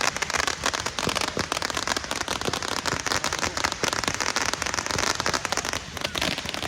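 Fireworks crackling: a dense, continuous run of many small sharp pops and crackles.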